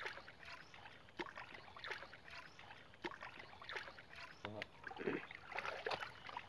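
Irregular small splashes and sloshing of feet wading and hands groping in shallow muddy water.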